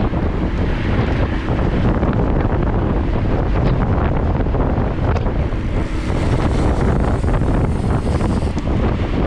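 Wind buffeting the microphone of a camera riding along on a road bicycle, a steady low rumble with scattered faint ticks.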